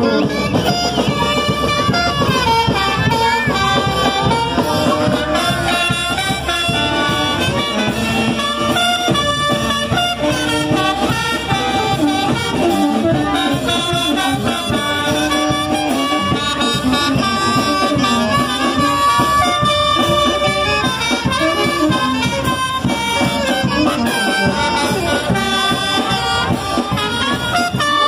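Brass band playing Majeños dance music, with trumpets carrying the melody.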